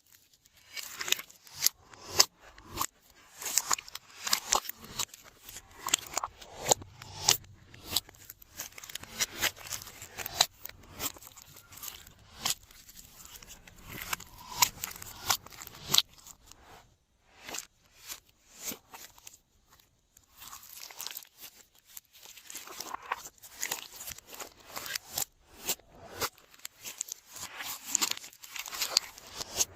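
Glossy slime being squeezed and stretched by hand: a stream of irregular sticky clicks and pops, easing off briefly past the middle.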